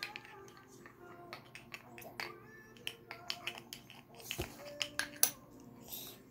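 Toy spoons clicking and tapping against the cups and saucers of a child's toy tea set, in irregular light clicks with a duller knock a little after four seconds in, over faint background music.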